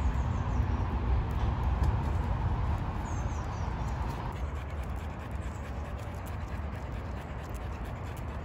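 Outdoor ambience with a steady low rumble and a few short high bird chirps, most clearly about three seconds in.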